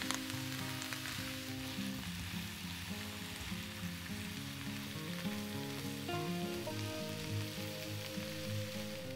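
Vegetables sizzling as they fry in oil in a pan, a steady hiss, with soft background music underneath.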